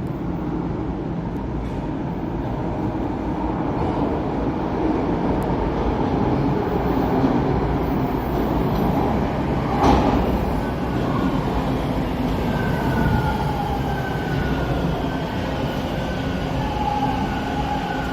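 TTC subway train rumbling along the track at a station, with one sharp clank about ten seconds in. Thin, high steady tones join in over the last third.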